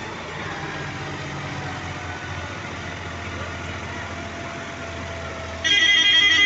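A John Deere tractor's diesel engine runs steadily while pulling two trailers heavily loaded with sugarcane. Near the end a loud vehicle horn sounds, several tones at once, far louder than the engine.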